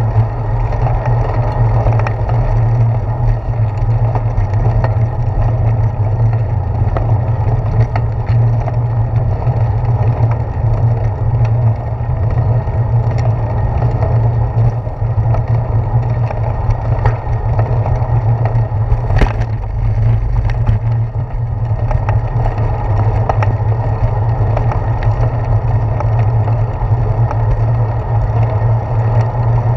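Bicycle riding along a concrete sidewalk, heard through a handlebar-mounted GoPro: a steady low rumble of wind and tyre noise, with scattered small clicks and knocks from bumps in the path, one sharper knock about two-thirds of the way through.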